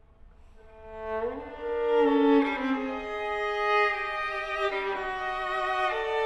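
Solo unaccompanied violin: a held note fades almost to nothing, then from about a second in the playing swells into loud sustained notes, often two sounding together as double stops.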